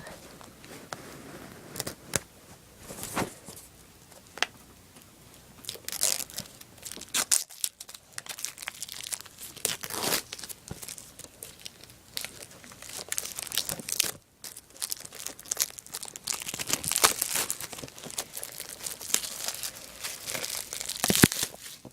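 Plastic shrink wrap being torn and peeled off a Blu-ray steelbook case: irregular crinkling and crackling with sharp tearing bursts, busier and louder in the second part.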